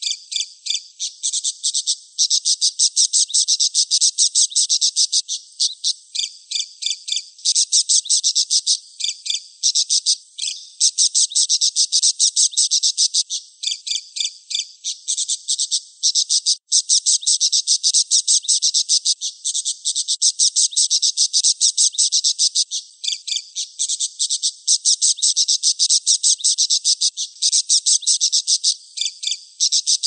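Budgerigar chattering: a fast, even stream of short high chirps, about ten a second, in long runs broken by a few brief pauses.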